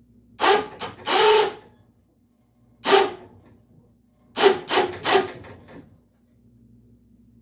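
Bursts of scraping and creaking metal as the rusted steel cab of a 1951 Chevy pickup is winched over and shifts against a wooden 6x6 beneath it. There are two bursts early, one near the middle and a group of three in quick succession a little later.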